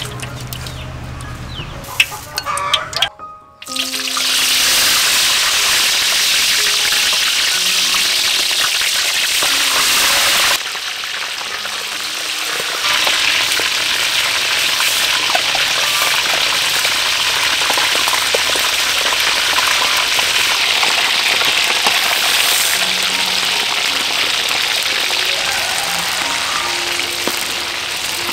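Hot oil in a wok sizzling steadily as whole red big-eye fish deep-fry, a loud, even hiss that starts about four seconds in, with a metal spatula turning the fish.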